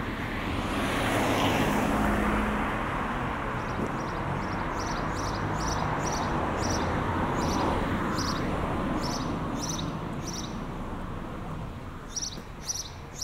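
A vehicle passes, its engine and road noise swelling about a second or two in and then fading slowly. From about four seconds in, regular light clicks come about two a second, getting louder near the end.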